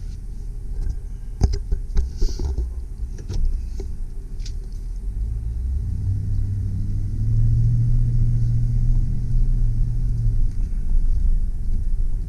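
2003 GMC Sierra 2500HD's 6.0-litre V8 heard from inside the cab as the truck pulls away in four-wheel high: a low rumble that builds as it speeds up to about 20 mph, easing off slightly near the end. A few clicks and knocks sound in the first few seconds.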